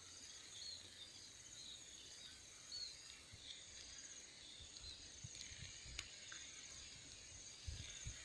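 Faint outdoor ambience: insects trilling steadily in a high, pulsing buzz, with a few short bird chirps and some light handling thumps near the end.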